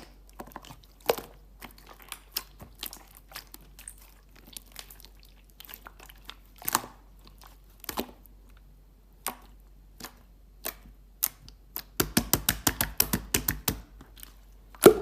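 Clear slime being handled, giving scattered sharp pops and clicks. About twelve seconds in comes a quick run of pops, about eight a second, and the loudest single pop comes near the end.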